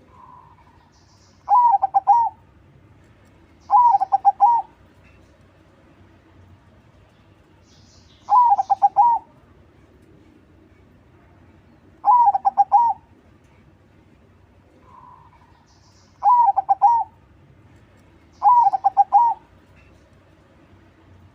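Crossbred 'crossing' zebra dove (perkutut) singing: six loud cooing phrases, each a quick run of warbled notes lasting under a second, repeated every two to four seconds. Faint high chirps from another bird come in between.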